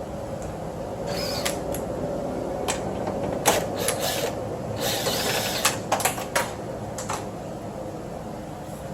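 Hand tools clicking and clinking against metal inside a car door, in short irregular bursts, as the screws that hold the window glass to the power window regulator are undone.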